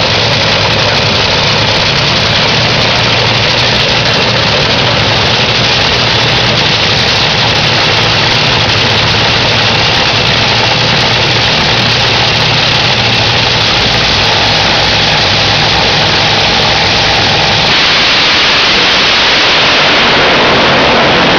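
Two nitromethane-burning Top Fuel dragsters' supercharged 500-cubic-inch Hemi engines running on the starting line, loud and unbroken. Near the end the sound changes as the cars launch at full throttle down the track.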